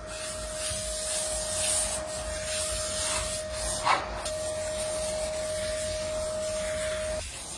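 Electric sanding tool working wood: a steady motor whine over the hiss of abrasive rubbing the surface, stopping about seven seconds in.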